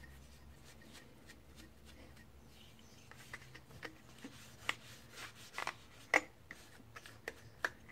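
Cloth wiping toner off the metal blade of a Lexmark laser printer drum unit: faint rubbing, then from about halfway a scatter of short clicks and scrapes as the blade is handled and wiped.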